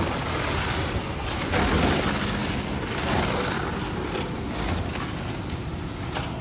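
Fire hose spraying water onto a smouldering pile of dumped trash: a rushing hiss that rises and falls.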